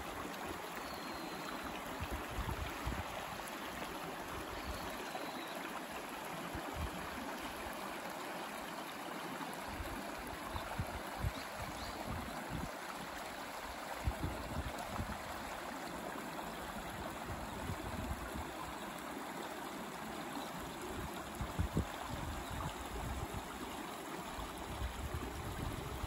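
Shallow creek water babbling over stones, a steady rush of running water with a few soft low bumps here and there.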